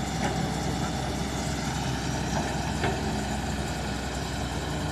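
Excavator's diesel engine running steadily at a low, even pitch, with a few faint knocks during it.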